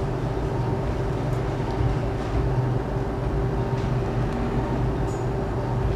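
Operating-room equipment running with a steady hum, a few faint ticks over it.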